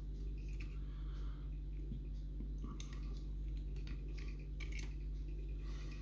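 Faint clicks and light scrapes of brass lock levers and spacers being lifted off the lever stack of an opened mortice lock, over a steady low hum.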